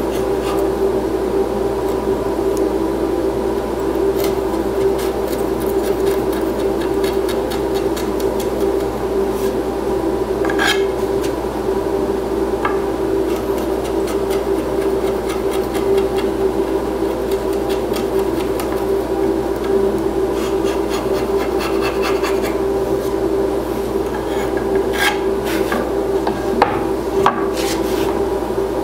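Hand chisel scraping and paring torn-out fibres off the edge of a solid-wood board, a run of short scratchy strokes that come in clusters. Under it runs a steady mechanical hum.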